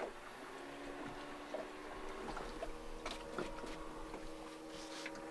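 A faint steady mechanical hum with a few light clicks and splashes.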